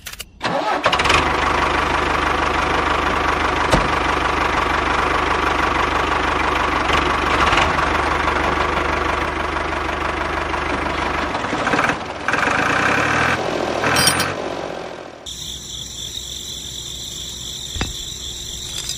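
Tractor engine running steadily with a knocking low beat; it changes pace between about twelve and fourteen seconds in. About fifteen seconds in, a quieter, steady high whine takes over.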